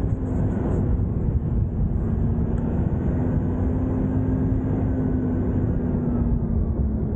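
Toyota Land Cruiser Prado engine running steadily under load in soft sand, its tone held level and then sinking slightly near the end as the revs ease.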